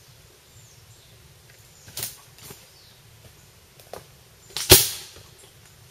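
A few footsteps in dry leaf litter, then about three-quarters of the way in a single sharp pop that dies away over about half a second: a homemade airsoft landmine set off underfoot, its alcohol vapour lit by a grill-igniter spark and blowing out baking soda.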